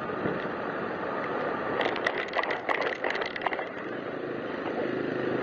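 Motor scooter on the move: steady wind and road noise over the camera mounted near the handlebars. In the middle comes a quick run of sharp taps and clicks lasting about a second and a half.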